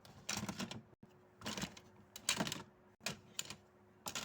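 Small plastic simple dimple fidget toys clattering and clicking against each other as they are dropped into a basket, in about five quick handfuls.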